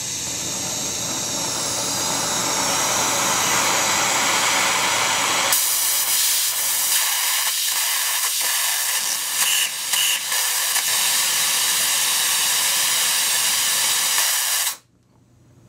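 Oxy-acetylene flame of a Lincoln Electric Port-A-Torch with its cutting attachment, burning with a steady hiss. About five seconds in it changes to a thinner, higher hiss as the oxygen brings the flame down to a short blue cone. The sound cuts off suddenly near the end.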